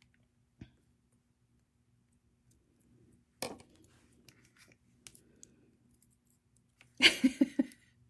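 Small metal clicks and ticks of jewelry pliers and wire as head pins are bent into wrapped loops around small beads. There is a sharper tick about half a second in and a louder clack about three and a half seconds in. A short breathy vocal sound comes near the end.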